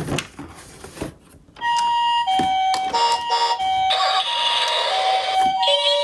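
A toy ambulance's electronic siren sounding the Japanese two-tone hi-lo "pee-po", switching pitch about every half second. It starts about one and a half seconds in, after a few clicks and knocks.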